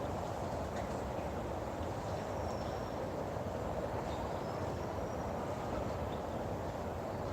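Steady outdoor background noise, with a few faint, thin, high chirps in the middle.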